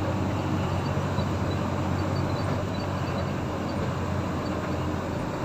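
Caterpillar 320 excavator's diesel engine running steadily, a constant low hum.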